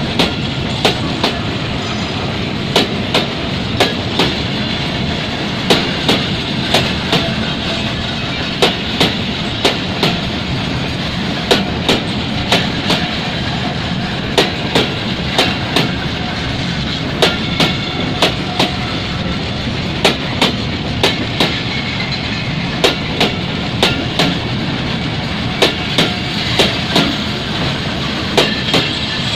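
Freight train of empty tank wagons rolling along, its wheels clicking over rail joints, often in pairs, about one to two clicks a second over a steady rumble.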